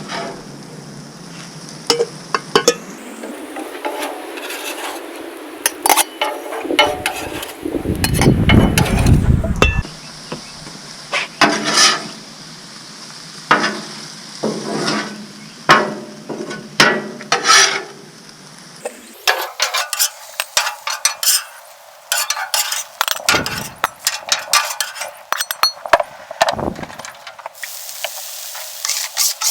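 Metal spatulas scraping and clicking on a Blackstone flat-top griddle over a steady sizzle, as cooked steak and vegetables are scooped off. A low rumble lasts about two seconds roughly a third of the way in.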